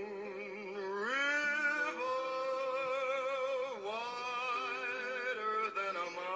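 Background music: a singing voice holding long notes with vibrato, sliding up about a second in and dipping briefly near the middle.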